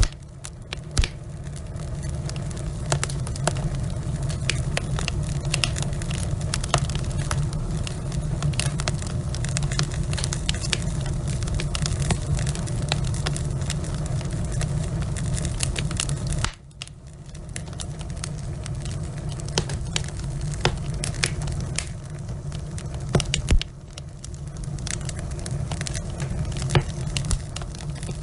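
Wood fire burning in a fireplace, with a steady low rumble of flames and frequent sharp crackles and pops from the burning logs. The rumble drops suddenly about sixteen seconds in and again near the end, then builds back.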